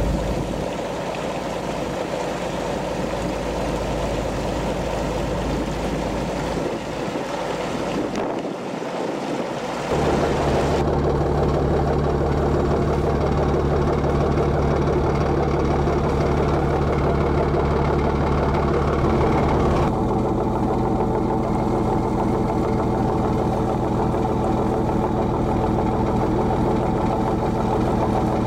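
Diesel engines running steadily, the sound changing abruptly about ten seconds in and again about twenty seconds in.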